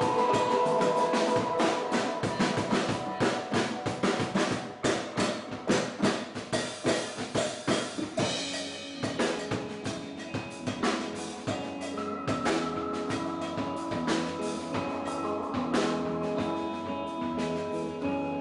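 Live rock band playing, led by a drum kit beating out dense, regular hits with electric guitar underneath. About eight seconds in the drumming thins and held guitar notes carry the music.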